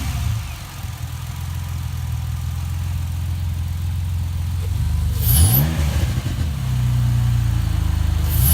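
2010 Ford Mustang engine, newly fitted with a cold air intake and throttle body spacer, idling just after starting, with a quick rev blip about five seconds in and another at the very end.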